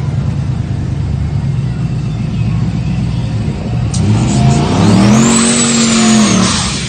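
Vehicle engines rumbling at idle, then about four seconds in one engine revs up hard and holds high for over a second with a high whine above it, before dropping back.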